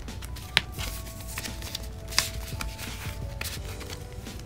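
Paper banknotes rustling and snapping as they are handled and tucked into a clear plastic cash pouch, with two sharper snaps about half a second and two seconds in. Soft background music plays underneath.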